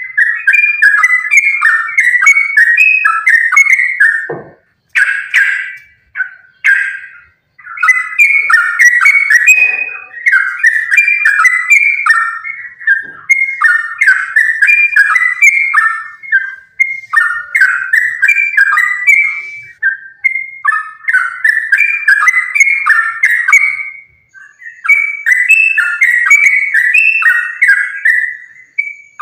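Yellow-vented bulbul (trucukan) singing in full, continuous song: rapid bubbling, chattering phrases run one after another. There are short breaks about five seconds in and again near twenty-four seconds.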